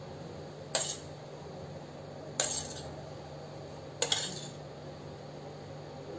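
Metal spoon clinking against stainless steel dishes three times, short sharp taps with a brief ring, about a second and a half apart, while spooning mango pieces onto phirni.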